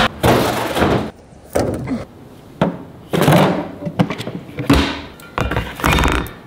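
Food and camping gear being packed into a cooler and storage bins: a series of knocks, clunks and rustles as items are set down, with a heavy thump near the end.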